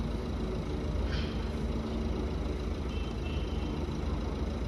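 Street ambience: a steady low rumble of traffic, with no clear single event standing out.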